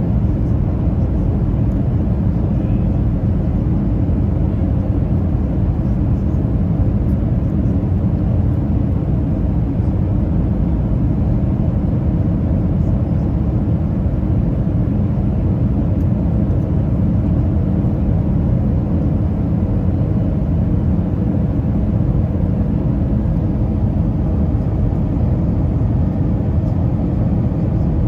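Steady cabin noise inside an Airbus A320 airliner: a constant engine and airflow rumble with a hiss above it, holding the same level throughout.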